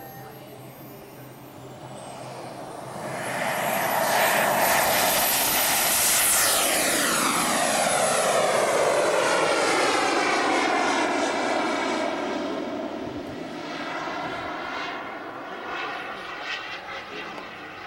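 Radio-controlled model jet's engine during take-off: a high thin whine rises in pitch, then the engine grows loud about three seconds in with a rushing sound. The sound sweeps downward in pitch as the jet passes, then fades as it climbs away.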